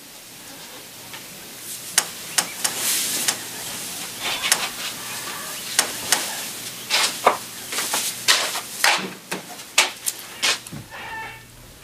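Bedclothes rustling with a run of sharp clicks and knocks, as a person gets out of bed, walks across the room and opens a window.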